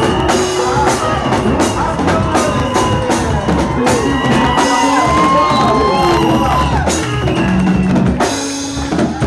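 Music with a drum-kit beat: bass drum and snare strokes under wavering melodic lines.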